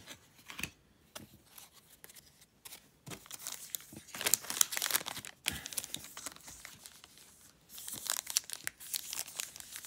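Foil wrapper of a trading-card pack crinkling and tearing as it is opened by hand, in two spells of dense crackle: one from about three seconds in and another near the end.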